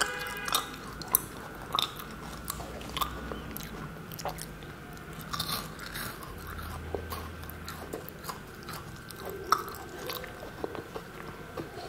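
A person chewing a large bite of a matcha sweet close to the microphone, with irregular crunches spread through the chewing.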